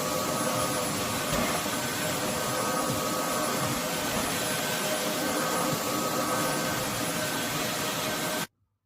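Roborock F25 GT cordless wet-dry vacuum mop running in auto mode, a steady rush of suction with a motor whine over it. It cuts off suddenly near the end.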